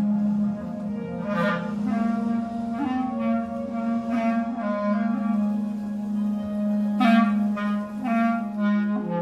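Clarinet playing a melodic line of notes that change every second or so, over a steady low sustained tone from the electronic part.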